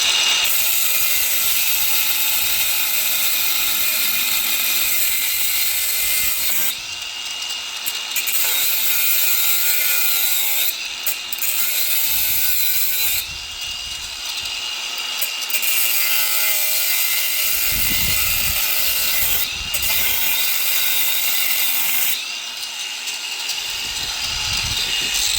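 Power tool working into a safe, running hard in long stretches broken by several brief pauses, with a harsh high hiss and a faint whine.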